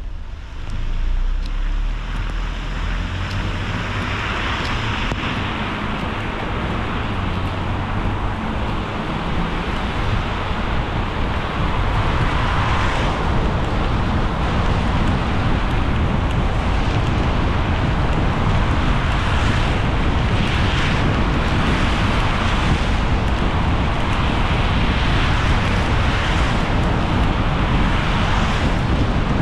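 Car driving on a wet road in the rain, heard from inside the cabin: a steady hiss of tyres and spray over a low engine rumble. It grows louder about a second in as the car pulls away, then rises slowly as it picks up speed.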